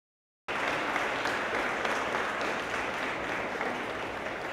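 Audience applauding, cutting in abruptly about half a second in and easing slightly toward the end.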